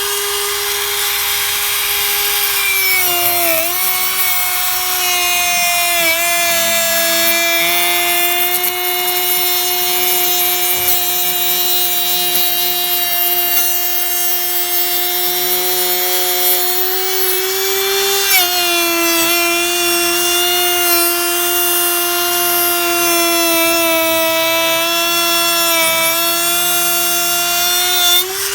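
Handheld electric router with a 1/4-inch cove bit cutting a profile into wood. It runs with a steady high whine that sags briefly in pitch each time the bit takes load, most clearly about 3.5 s, 6 s and 18 s in.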